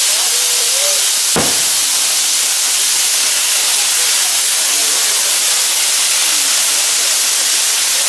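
Hand-held bamboo-tube fountain fireworks (tachibana) spraying sparks with a loud, steady hiss. One sharp crack about one and a half seconds in.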